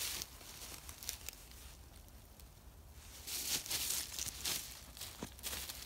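Footsteps crunching and rustling through dry fallen leaves. The steps come irregularly and grow louder from about three seconds in.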